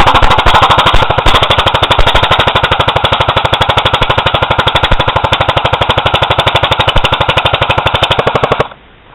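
CYMA AK47 electric airsoft rifle firing one long fully automatic burst, a rapid, even rattle of shots lasting about eight and a half seconds and cutting off suddenly near the end.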